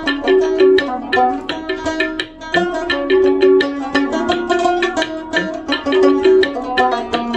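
Background music with a quick, busy percussive beat under a melody of held notes.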